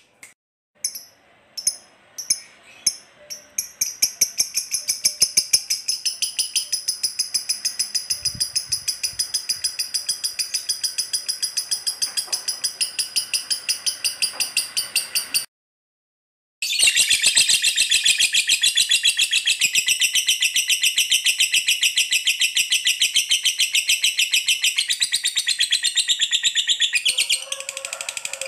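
Masked lovebird's ngekek: a long, rapid chattering trill of high, evenly repeated chirps. It builds from a few separate chirps into one unbroken run, cuts off suddenly about halfway through, and resumes after about a second.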